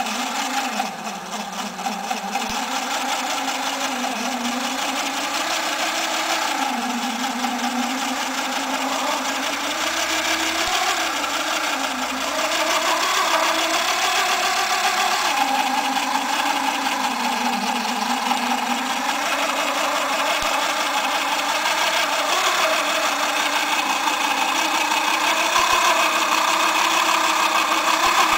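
Small battery-powered electric motor running steadily, driving a homemade model crawler's chipboard-block tracks, with a light rattle from the drive. Its whine wavers up and down in pitch as the load on it changes.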